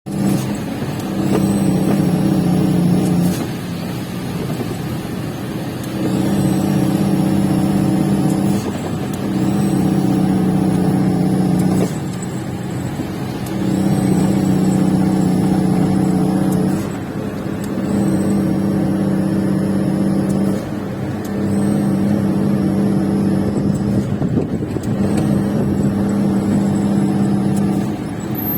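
Truck on the road: a steady rumble with a droning tone that keeps one pitch and comes and goes in stretches of two to three seconds.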